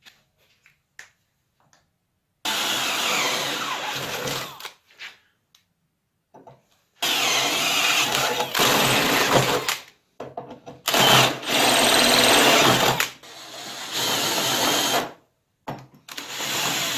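Electric arc welding on steel plates. The arc burns in five runs of about one to three seconds each, and each run starts and stops abruptly.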